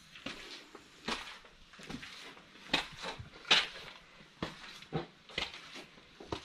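Footsteps climbing stone steps: irregular scuffs and taps of shoes on stone, a little under one a second.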